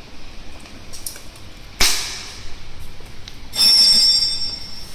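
A single sharp clack about two seconds in, typical of a wall-mounted circuit breaker being snapped on. It is followed near the end by a high whistling hiss that lasts over a second and fades.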